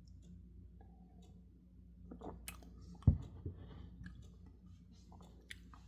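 A person sipping and swallowing beer, with small wet mouth clicks, and one dull thump about three seconds in.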